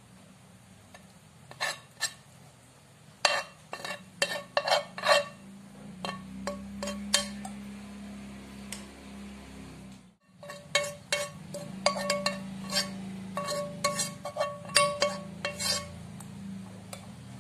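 Metal utensils clinking and scraping against a pan and a ceramic bowl as spaghetti is served and then arranged with a fork. A run of sharp clinks, some ringing briefly, comes in two bunches with a short break about ten seconds in.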